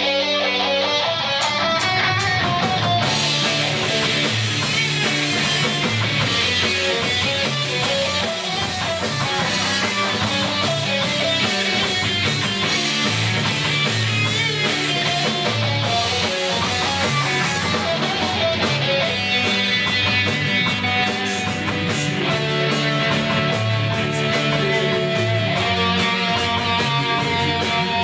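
Live rock band playing an instrumental passage on electric guitar and bass guitar. A fast, steady ticking beat comes in about two-thirds of the way through.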